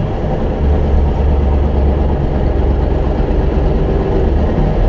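MAN truck's diesel engine running as the truck drives along, a loud steady drone whose note drops lower about half a second in and rises back near the end.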